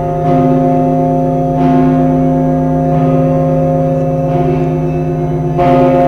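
Russian Orthodox cathedral bells pealing: a stroke about every second and a half, each over the long, overlapping ring of several bells sounding together.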